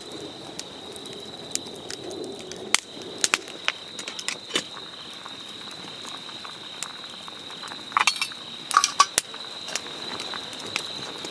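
Steady high-pitched insect trill, typical of crickets, with scattered sharp clicks and a cluster of ringing metal-and-glass clinks about eight to nine seconds in.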